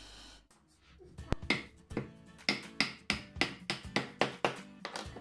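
Knife blade cutting the peel off a raw swede in quick strokes, about three a second, over background music.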